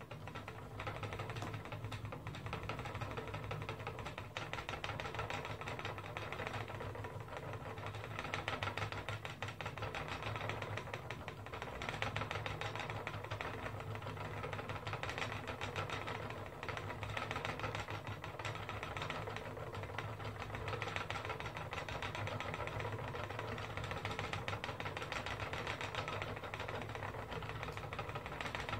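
Wooden spinning wheel running, a steady fast clicking whirr of the wheel and flyer, starting abruptly as the wheel is set turning.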